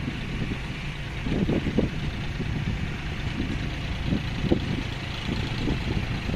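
Diesel engine of a heavy construction machine running steadily, with uneven low thuds.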